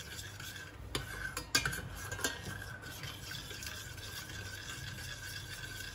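A spoon stirring sugar water and spice tempering in a small stainless steel saucepan, clinking and scraping against the pan a few times in the first half, then stirring more quietly.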